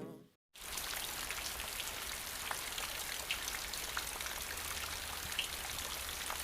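Rain falling: an even hiss with scattered small drop ticks, starting about half a second in.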